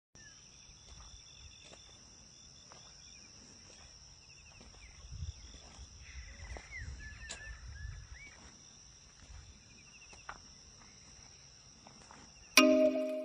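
Rural field ambience: a steady high insect drone with scattered short bird chirps and a faint low rumble. Loud music with plucked notes starts near the end.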